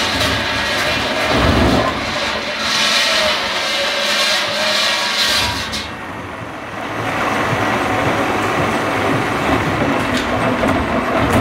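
Chinese-made log debarking machine running: two ridged steel rollers turn a log between them, stripping off its bark with a loud, continuous mechanical noise. The noise eases briefly about two-thirds of the way through, then picks up again.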